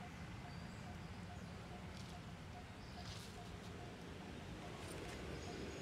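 Faint outdoor ambience: a steady low rumble, a soft tick repeating about twice a second, and a few brief high chirps.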